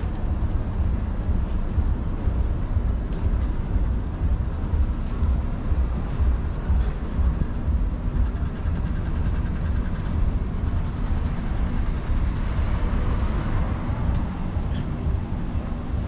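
Wind buffeting the microphone and road noise on a moving bicycle: a heavy, uneven low rumble throughout. A louder hiss swells and fades about three-quarters of the way through.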